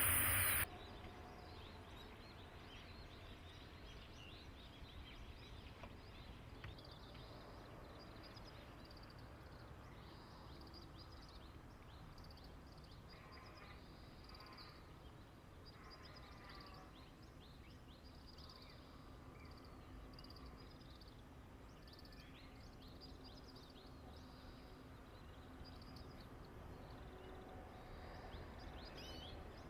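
Loud train noise cuts off abruptly under a second in, leaving faint outdoor ambience with small birds chirping on and off.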